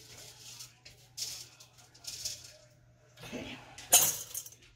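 Dry lentils poured from a metal scoop through a stainless steel canning funnel into glass pint mason jars: a few short rattling pours, then a sharp metal clink of the scoop against the funnel about four seconds in.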